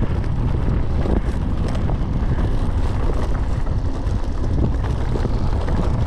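Mountain bike rolling down a rough dirt trail: a steady rumble of tyres on dirt and wind on the microphone, with frequent small knocks and rattles from the bike over bumps.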